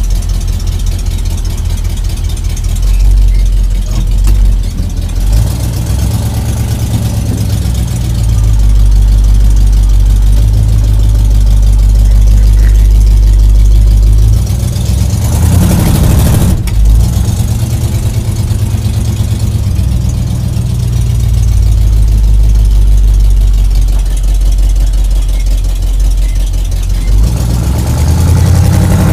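1979 Jeep J10's AMC 360 V8 running through dual straight pipes as the truck is driven, a deep exhaust note heard from inside the cab, rising and falling slightly in loudness. About halfway through, a brief rush of noise and a sharp click sound over it.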